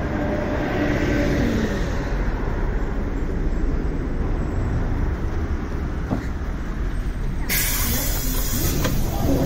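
Toei city bus running, with its engine and road rumble and a shifting engine note. Near the end comes a loud burst of compressed-air hiss from the bus's air brakes, lasting about a second and a half.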